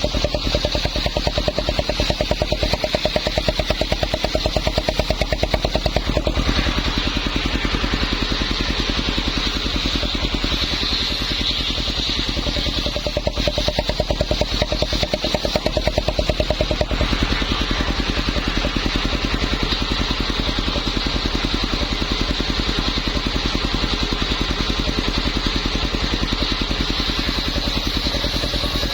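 Small engine running steadily, driving a homemade circular saw, with a high whine over a fast pulsing beat. The note shifts about six seconds in and again near seventeen seconds.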